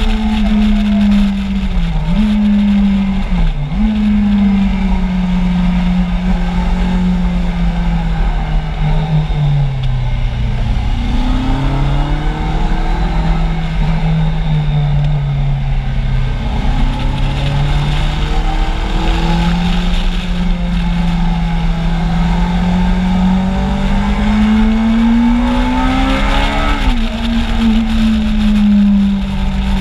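Kawasaki Z750 inline-four engine heard from on board while riding, over a steady low wind rumble on the microphone. The revs dip sharply twice in the first few seconds, fall away as the bike slows about ten seconds in, hold steady, then climb near the end before dropping back at a gear change.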